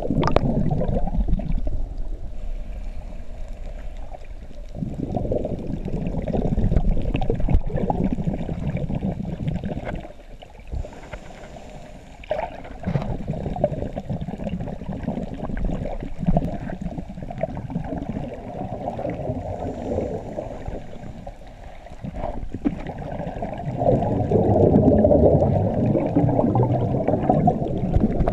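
Scuba divers' exhaled regulator bubbles gurgling and rumbling, heard muffled underwater, swelling in surges several seconds apart with quieter spells between.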